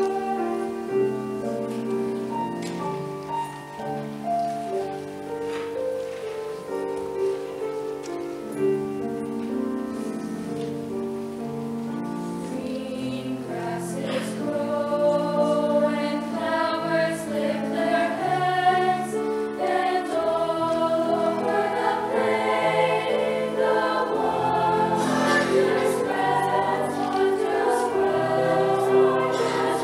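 Women's choir singing held notes together, growing louder about halfway through.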